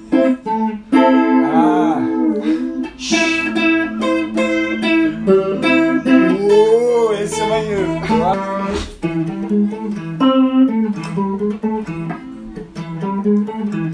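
Electric guitar being played, picked notes and chords, with a voice singing along at times.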